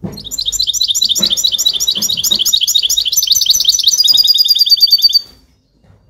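European goldfinch singing close up in its cage: a fast run of repeated high looping notes, about five a second, that quickens into a rapid trill about four seconds in and stops a second later.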